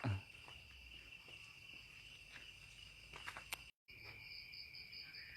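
Crickets trilling steadily with a high, even tone. The sound cuts out for an instant about two-thirds through; after that a second, higher chirp pulses along with the first trill.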